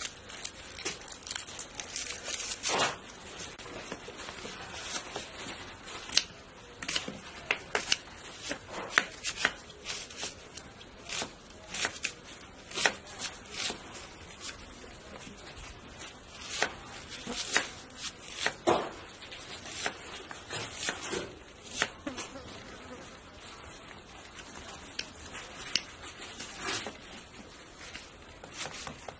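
Knife slicing and dicing red onions on a wooden chopping board: irregular sharp taps of the blade striking the board, sometimes in quick runs.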